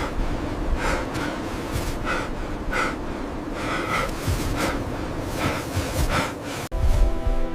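A person breathing hard and fast, with short breaths about every two-thirds of a second over a steady low rumble. Music comes in near the end.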